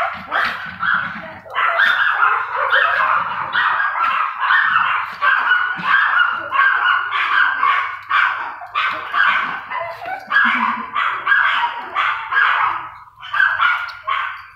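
Small dog yapping in quick, high-pitched barks, about two or three a second, with a brief pause near the end.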